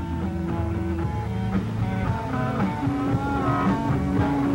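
Rock-style music with guitar, with long held notes under a moving melody.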